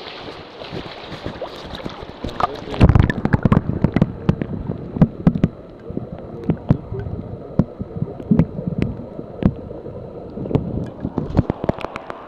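A hooked steelhead splashing at the river's surface, then muffled sloshing with many irregular knocks from about three seconds in as the microphone dips into the water.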